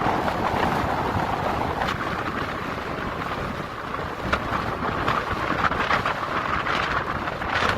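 Strong wind blowing over the microphone together with waves breaking on the beach: a loud, steady rushing noise with a few short sharp hits.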